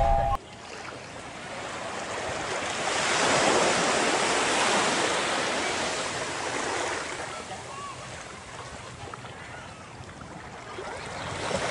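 Ocean surf: a wave swells up and washes in, recedes, and another builds near the end.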